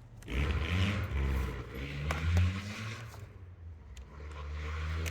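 Low rumble of a motor vehicle's engine, its pitch rising over the first couple of seconds, with a few light clicks.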